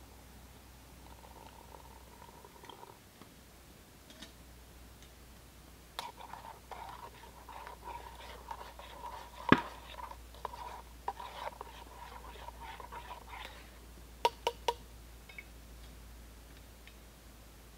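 Small gear handled by hand at close range: a run of light clicks, taps and rustles, one sharp knock about halfway through, and three quick sharp clicks near the end.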